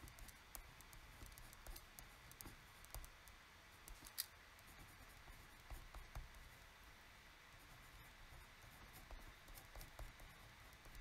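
Faint scratching and light ticks of a pen writing on a sheet of squared paper, with one sharper tick about four seconds in.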